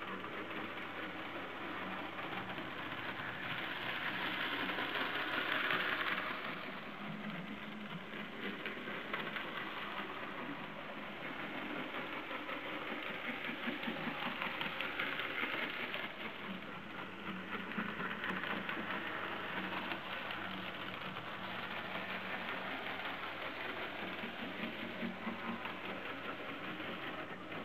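N gauge model train running on the layout: a steady small-motor whir with a rattle of wheels on the track. It swells louder for a few seconds beginning about three and a half seconds in.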